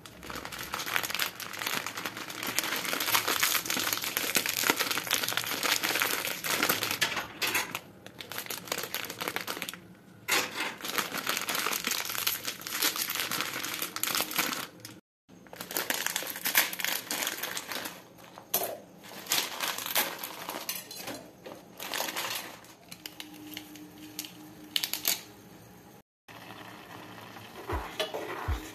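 Plastic wrapper of a Maggi 2-Minute Noodles packet crinkling loudly and irregularly as it is handled, broken by two abrupt cuts.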